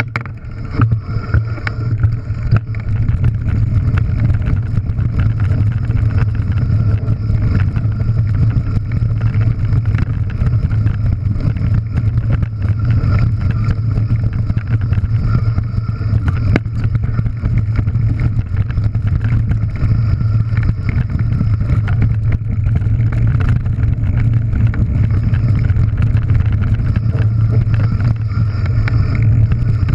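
Mountain bike descending loose shale scree, heard from a bike-mounted action camera: a steady heavy rumble of wind and rolling on the microphone, with a constant rattle of tyres and stones crunching underneath. It builds over the first few seconds as the bike gets going.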